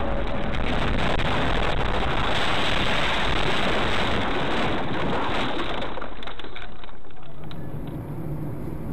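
Steady rushing road and engine noise of a moving car. About seven seconds in it changes abruptly to a quieter, lower hum.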